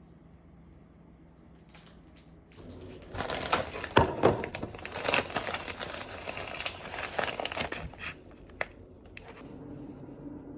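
Crinkling and rustling, as of something being crumpled or handled, starting about two and a half seconds in and fading out near the end, with many sharp clicks in it.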